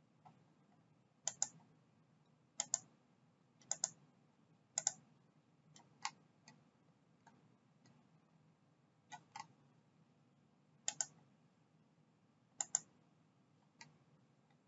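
Computer mouse clicking, mostly in quick double clicks, about one a second at first and then a few more spread out with faint single ticks between.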